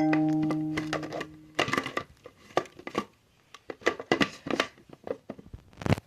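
Plastic vacuum-cleaner parts being handled and shifted about, with many irregular clicks, knocks and crinkling rustles. At the very start a brief ringing tone fades away over about a second and a half.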